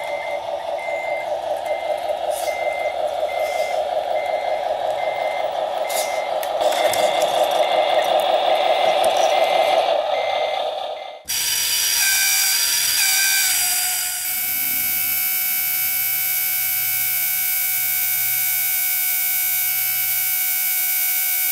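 A model truck's electronic sound unit plays a diesel engine running, with a reversing alarm beeping about one and a half times a second. About eleven seconds in it cuts off abruptly, and a steady electronic buzzing drone of many tones follows.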